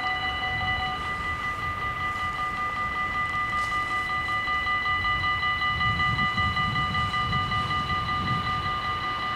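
Dutch level-crossing warning bells ringing continuously while the barriers are down, several bell tones sounding together, one of them dropping out about a second in. A low rumble builds in the second half.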